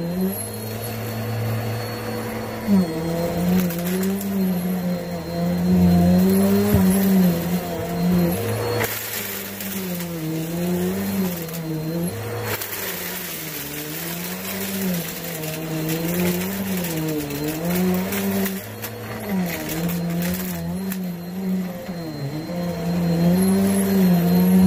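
Vacuum cleaner running continuously, its motor hum dipping and rising in pitch every second or two over a steady rush of air.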